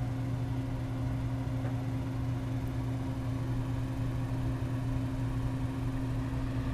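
Steady low hum of running machinery, engine-like, holding one low tone with its overtone and no change in pitch or level.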